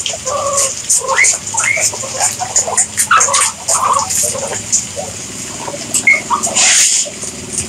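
A crowd of guinea pigs squeaking and chirping, many short calls, some sliding upward in pitch, over quick clicking and rustling as they feed on grass. A louder rustling rush comes near the end.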